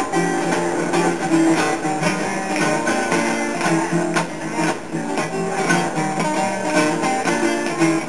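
Acoustic guitar strummed steadily, chords ringing in a regular rhythm.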